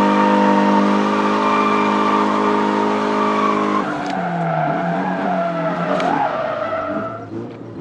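Drift car's engine held at high, steady revs with tyres squealing as the car slides, heard from inside the cabin. About four seconds in the revs drop and the sound wavers lower, then falls away near the end.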